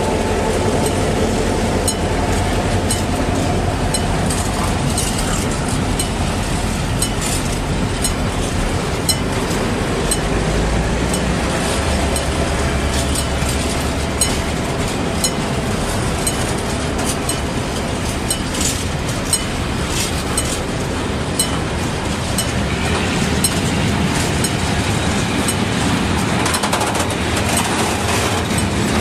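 Diesel locomotive passing close, its engine drone fading over the first few seconds, then a freight train of container wagons rolling by with a steady rumble and repeated wheel clicks over the rail joints.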